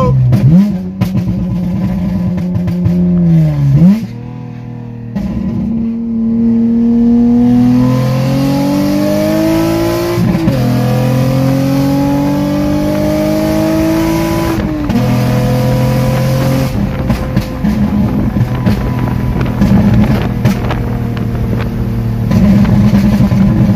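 2009 Honda Accord coupe's 3.5-litre V6 with a straight-piped exhaust and the electric cutout open, heard from inside the cabin with the windows down. It accelerates through the gears, the pitch climbing and then dropping at shifts about four, ten and fifteen seconds in, then settles into a lower, steady cruise.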